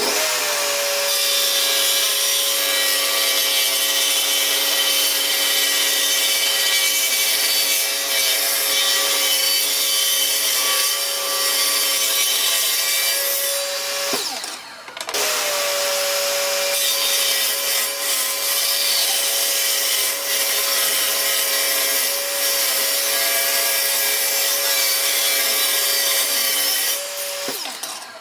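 Benchtop table saw running at a steady pitch, its blade ripping thin wooden strips, with a short break about halfway through before it starts up again.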